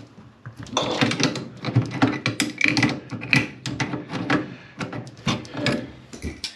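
Irregular clicking, creaking and scraping of a hand tool turning a central heating pump isolation valve on the copper pipe above the pump.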